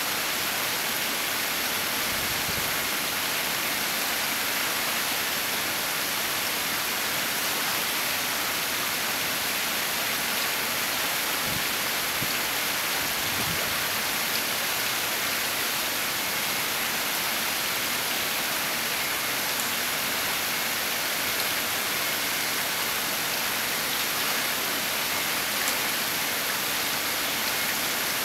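Steady, even rushing noise of water that does not change or break.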